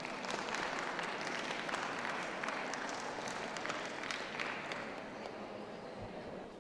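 Ringside audience applauding as a dog is gaited round the show ring, a dense patter of clapping that swells just after the start and fades away toward the end.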